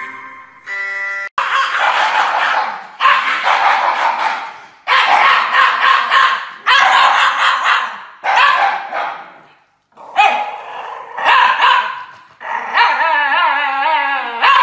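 Two Shiba Inu dogs howling together in a string of about ten short, loud cries, the last one a longer wavering howl near the end.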